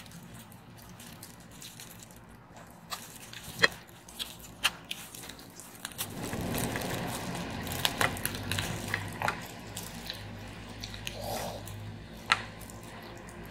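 Cooked crab shell being broken apart by hand in plastic gloves: a run of sharp, irregular cracks and snaps as the body and legs are pulled open, with a softer rustling noise from about halfway through.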